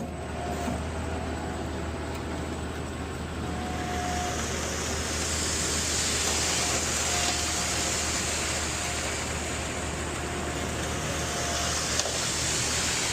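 Concrete mixer truck running steadily during a pour, its diesel engine humming low while the drum turns to discharge concrete. A higher hiss swells from about four seconds in and fades near the end.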